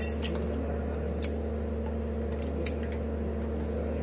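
A few scattered light metallic clicks as brake pads are worked out of a multi-piston disc brake caliper, over a steady low hum.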